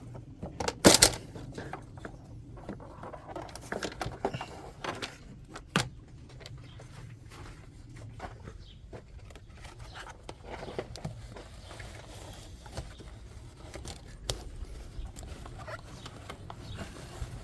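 Scattered clicks, knocks and scrapes of hand tools and parts being handled, the sharpest knocks near the start, about a second in and about six seconds in.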